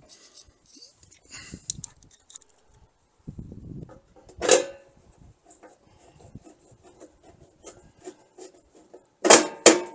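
Metal breaker panel cover being fitted back onto the electrical panel: light scrapes and small clicks, one sharp knock about halfway through and two loud knocks in quick succession near the end.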